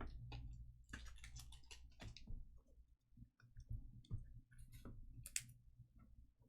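Faint, irregular clicks and light snaps of chromium trading cards being handled and flipped through by hand.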